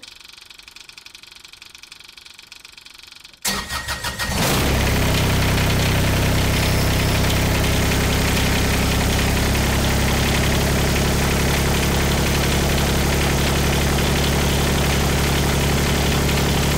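An engine cranks and catches about three and a half seconds in, then runs at a steady idle.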